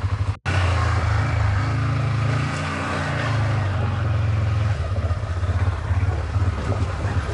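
CFMoto CForce 550 ATV's single-cylinder engine running steadily at low speed while riding, with a brief sharp dropout in the sound about half a second in.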